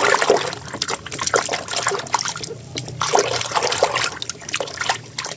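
Water running and splashing while a muddy toy is washed by hand, with small knocks and clatters of plastic among the splashing.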